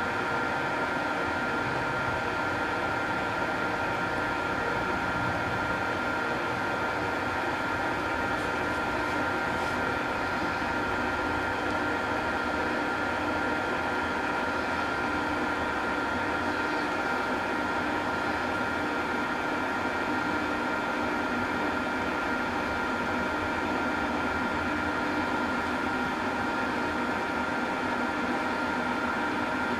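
Engine lathe running steadily while single-point cutting a 1.5 mm pitch thread along a shaft: an even machine hum with a constant high whine from the gearing.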